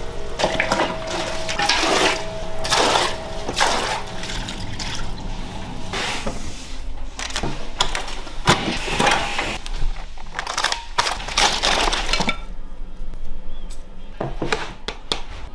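Soup broth sloshing and splashing in irregular surges, then quieter from about twelve seconds in, with a few light clinks.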